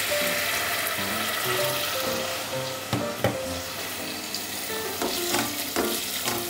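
Red wine poured into a hot aluminium pot of tripe and soffritto, sizzling steadily as it starts to reduce. A few knocks in the second half as a wooden spoon stirs the pot.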